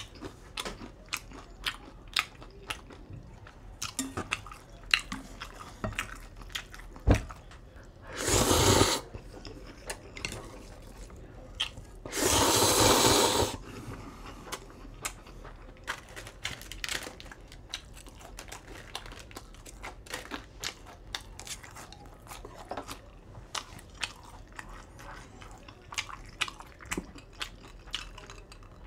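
Close-up eating sounds: chewing ramen noodles with many small mouth clicks, and two loud slurps of noodles about eight and twelve seconds in, the second one longer.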